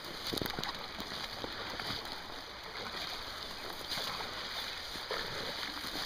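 Wader-clad legs wading through shallow creek water, with irregular sloshing and splashing steps.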